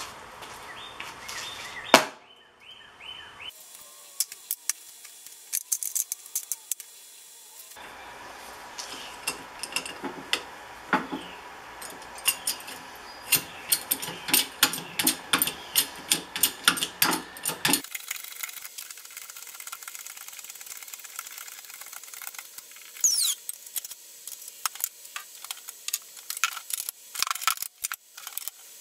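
Short metal clicks and knocks from taking apart a scrap piece in a hydraulic shop press with hand tools. There is one sharp loud knock about two seconds in, a quick run of clicks in the middle, and a brief falling squeal later on.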